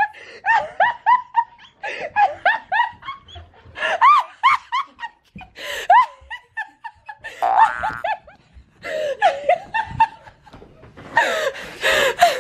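Laughter: giggling in quick bursts of short rising-and-falling notes, about four a second, turning louder and harsher near the end.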